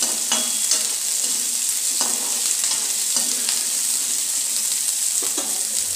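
Chopped onions sizzling steadily in hot oil in a small kadhai, stirred with a spatula that scrapes and taps against the pan several times.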